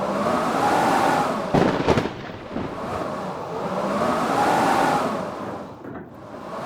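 Blizzard wind howling in gusts, its pitch rising and falling as each gust swells and fades, about every three and a half seconds. A few sharp cracks come between one and a half and two seconds in.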